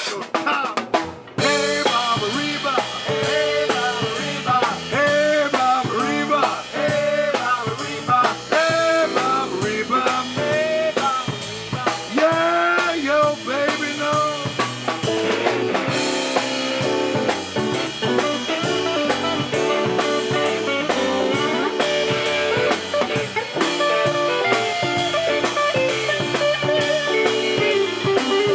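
Live blues-rock band playing: electric guitars, electric bass and drum kit, with bending lead lines over the beat. The band drops out briefly about a second in, then comes back in full.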